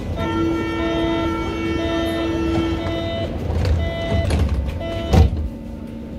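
Door-closing warning signal of a Berlin U-Bahn H-series train: a steady electronic tone with a higher beep repeating about once a second. About five seconds in, the sliding doors shut with a loud thud, and a low steady hum from the train follows.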